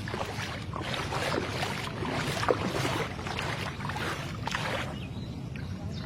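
Floodwater sloshing and swishing around someone's legs as they wade through knee-deep water on a street, a swish with each stride, with one sharper splash about halfway through.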